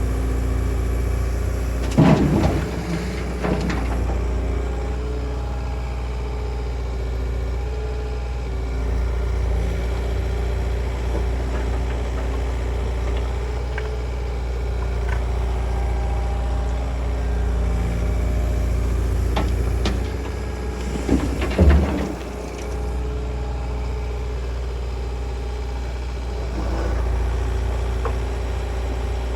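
Diesel engine of a construction machine running steadily, with two short loud metallic clanks or clatters, one about two seconds in and one a little past the middle.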